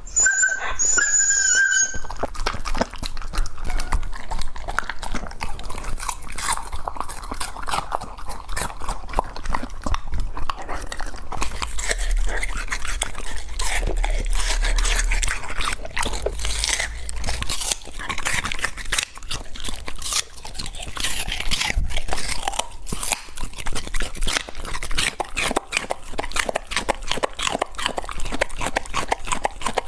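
Border collie crunching and chewing close to a clip-on microphone, biting into a watermelon wedge and then a raw carrot in a long run of wet, irregular crunches.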